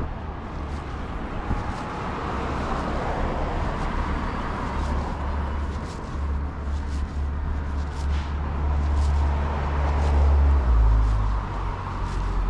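Street traffic: vehicles driving past with a low engine and tyre rumble that builds to its loudest about ten seconds in, then eases.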